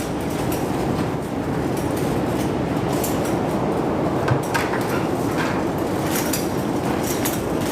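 Strong wind blowing across the microphone as a steady rumble, with a few short knocks and rattles about four seconds in and again near the end.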